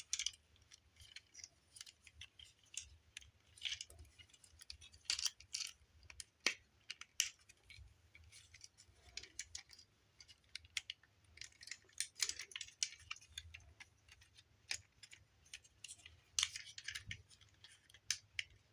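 Hard plastic parts of a Transformers Studio Series deluxe Ratchet figure clicking, scraping and rattling in the hands as they are folded into robot mode and tabs are pushed into slots. The clicks are faint and irregular, a few every second.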